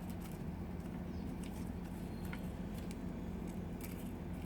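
Small plastic toy pieces being handled and put back into a container: faint scattered clicks and taps over a steady low hum.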